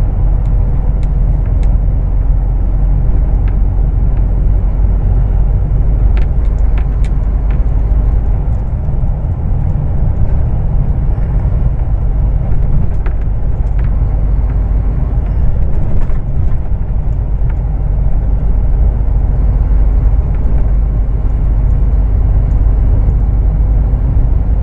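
Heavy truck cruising on a highway, heard from inside the cab: a steady, loud low rumble of engine and road noise, with a few faint clicks and rattles scattered through.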